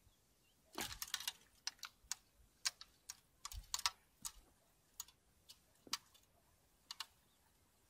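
Irregular sharp clicks and taps of a fishing rod and its spinning reel being picked up and handled, several in quick clusters, then fewer and further apart.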